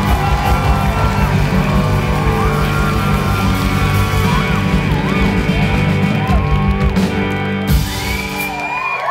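Live band playing the final loud bars of a song over whooping from the audience. The music stops about three-quarters of the way through, leaving the crowd cheering and whooping.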